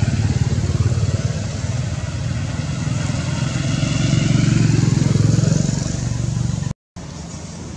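A motor engine running steadily, a loud low drone that cuts off abruptly near the end.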